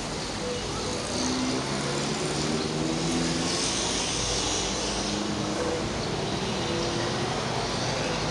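Steady hum of city street traffic, with scattered faint engine and horn tones in it.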